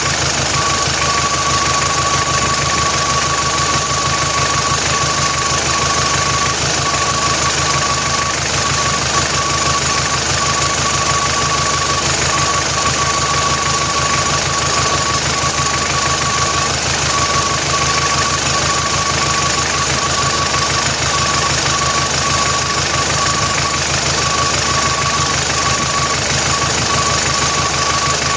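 Vehicle engine idling steadily with a fast, even knocking pulse and a thin high whine that flickers on and off: the strange noise being shown.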